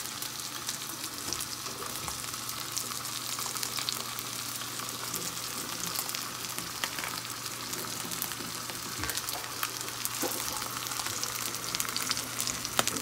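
Two whole masala-marinated sea bass frying in olive and coconut oil in a large pan: the oil sizzles steadily with a dense crackle of many small pops.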